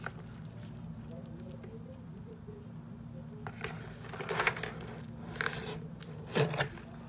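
Light rustling and handling noises of hands and small objects moving on a tabletop, with a few stronger bursts in the second half, over a steady low hum.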